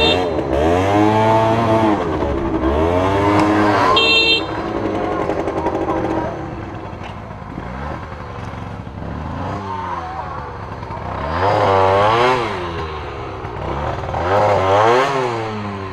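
50cc two-stroke dirt bike engine revving up and dropping back again and again while ridden through mud, loudest in the first few seconds and in two rises near the end.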